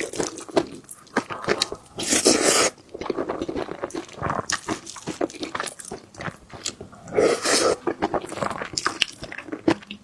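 Close-miked chewing and biting of food: irregular wet mouth sounds and crunching, with two louder noisy passages about two and seven seconds in.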